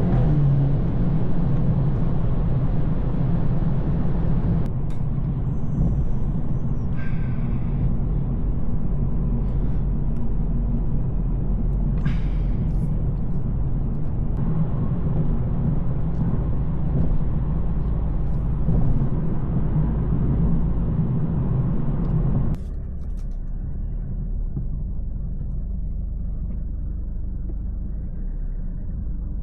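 Tuned BMW 220i's B48 turbocharged four-cylinder engine and M240i exhaust droning steadily while cruising, with road noise and a few faint clicks. About three-quarters of the way through the sound drops abruptly to a quieter, duller rumble.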